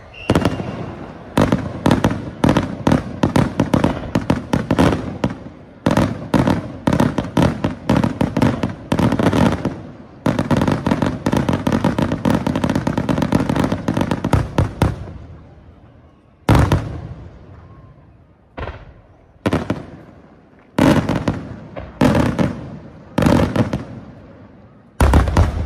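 Aerial firework shells bursting in a display: a dense, rapid barrage of bangs and crackling for about the first fifteen seconds, then single loud shell bursts every second or two.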